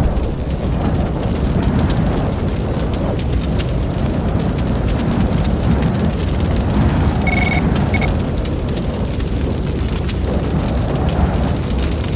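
A steady, loud low rumble with a hissing haze over it, and a few faint short high tones about seven seconds in.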